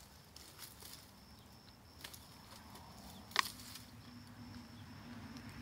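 Long-handled loppers cutting dry wood off a dead log, with light clicks and rustling of dry brush and one sharp snap about three and a half seconds in.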